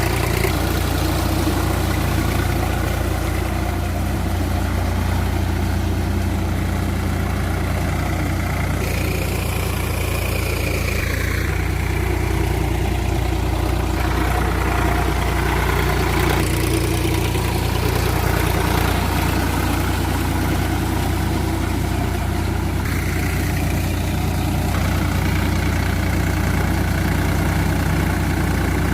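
Sonalika DI-47 RX tractor's diesel engine running steadily with a deep drone. A whine falls in pitch about ten seconds in, and the sound changes abruptly a few times.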